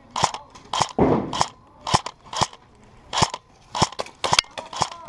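Airsoft guns firing single shots: about ten sharp pops at an uneven pace, some about half a second apart and two in quick succession near the end, with a duller, longer thump just after a second in.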